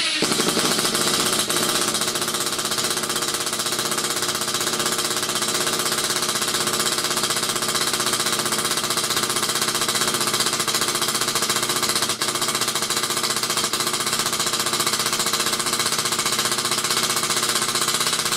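Milwaukee M18 Fuel cordless impact driver hammering steadily on its lowest speed setting, slowly driving a 3.5-inch wood screw into timber. On this setting it is slow and has much reduced torque. The impacting dips briefly once, about twelve seconds in.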